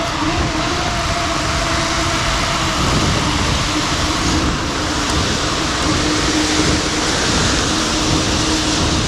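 Steady rush of wind and rain noise on a helmet-mounted camera while a mountain bike is ridden fast through the rain, with a steady hum running under it.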